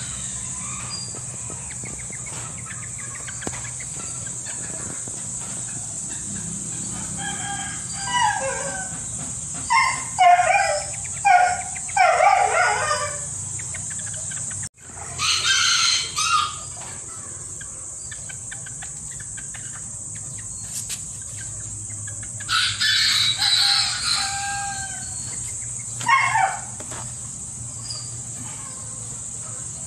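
Serama bantam roosters crowing several times, high-pitched crows with the loudest run of calls about ten to thirteen seconds in and shorter ones later.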